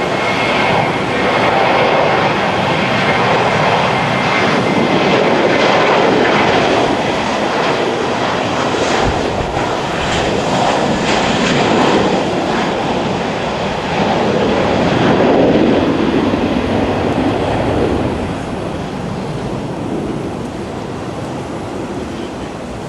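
Airliner jet engines at takeoff power during the takeoff roll, a loud steady roar that peaks about fifteen seconds in, then fades as the jet climbs away.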